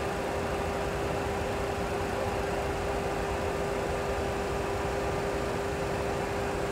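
Steady cockpit noise of a Boeing 737 Classic full flight simulator during taxi: an even hiss and rumble with one constant tone, the simulated engines running at idle.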